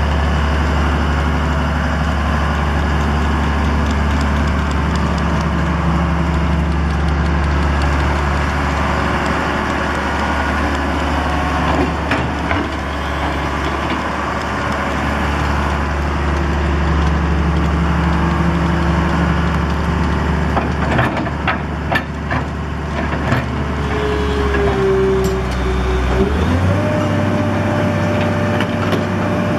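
Diesel engine of a 1993 Dresser 6220LC tracked excavator running steadily, with scattered knocks and clanks from the machine. Near the end the engine note steps up and a steady whine joins in.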